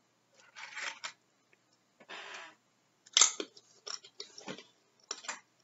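Chewing crunchy tortilla chips: a few separate crunches and mouth clicks, coming unevenly.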